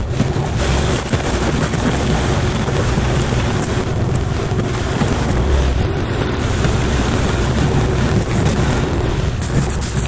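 A mini excavator's diesel engine runs under load while its hydraulic forestry mulcher head spins, grinding through brush, stumps and dirt in a steady, loud, noisy chatter over a low engine hum.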